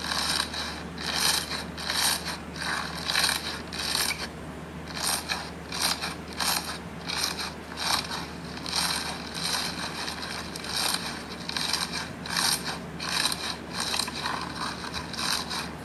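Slime being squeezed and pressed by hand, crackling and squelching in short repeated bursts of about two a second, with a brief pause about four seconds in.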